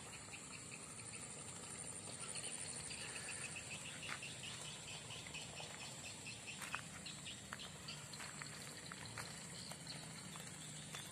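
Outdoor animal ambience: a steady high insect buzz, with many short chirps scattered through it.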